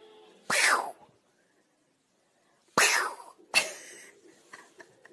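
Three sharp, sneeze-like bursts, each about half a second long: one about half a second in, then two close together about three seconds in.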